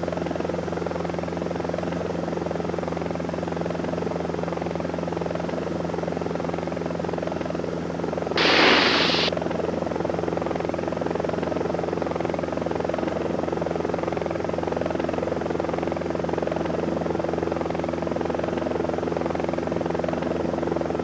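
Steady drone of a Cessna 172 Skyhawk's four-cylinder piston engine and propeller, heard inside the cabin while it climbs under added power. A short burst of hiss comes about eight and a half seconds in.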